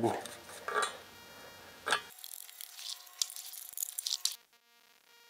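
Light clicks and clinks of small hardware being handled, with a sharp click about two seconds in. Faint background music with held tones then comes in, with scratchy handling noise over it until just past four seconds.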